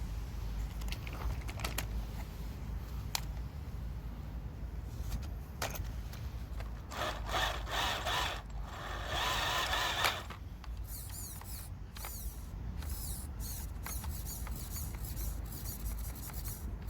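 Small electric motor of an HBTOYS ZP1001 radio-controlled off-road car whining in short bursts that rise and fall in pitch, the loudest about seven to ten seconds in. Scattered clicks and ticks come from the car working over rough ground.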